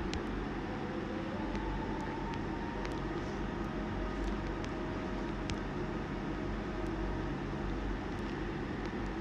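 Steady low hum and hiss of background noise, with a few faint, scattered ticks.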